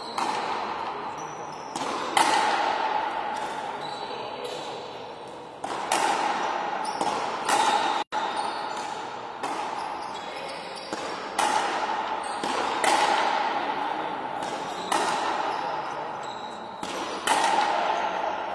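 Frontenis doubles rally: the rubber ball is struck by strung rackets and slams off the front wall and floor, sharp cracks about once a second, each ringing on in the echoing fronton hall. The sound cuts out for an instant about eight seconds in.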